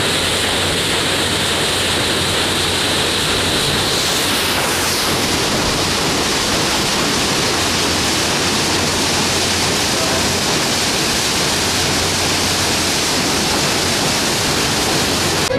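Stern paddlewheel of a steam paddleboat churning the river: a steady, loud rush of splashing water with a low hum beneath it.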